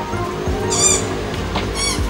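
Background music, with two short high-pitched squeaks that rise and fall in pitch, one about a second in and one near the end.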